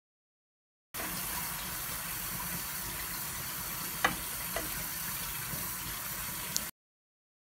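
Grated beetroot, carrot and onion stewing in a pan with a steady hiss, stirred with a wooden spatula that knocks against the pan three times.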